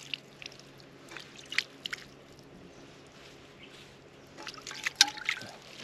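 Irregular small clicks and knocks, loudest about five seconds in, with a little water dripping and trickling.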